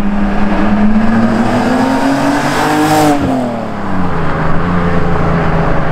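S52-swapped BMW E36 328's 3.2-litre straight-six, with Schmiedmann shorty headers, X-pipe and UUC TSE exhaust, accelerating past with a rising engine note. About three seconds in the pitch drops sharply as it goes by, then holds a steady lower note as it drives away.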